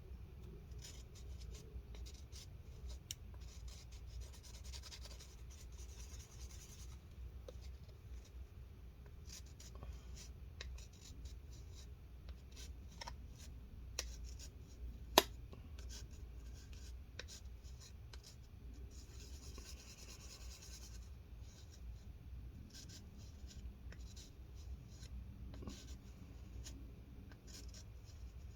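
Faint scraping and rubbing of two-part epoxy being stirred and mixed by hand, with small ticks throughout and one sharp click about halfway through.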